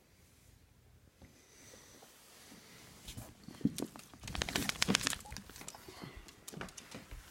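Rustling and crinkling handling noise close to the microphone, with a flurry of sharp clicks and knocks about halfway through.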